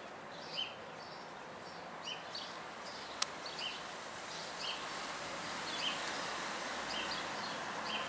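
Small birds chirping, short repeated chirps about once or twice a second, over a steady hiss of water trickling from a garden hose. A single sharp click about three seconds in.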